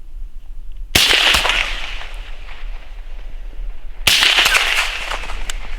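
Two rifle shots about three seconds apart, each a sharp crack followed by a rolling echo that fades over about a second.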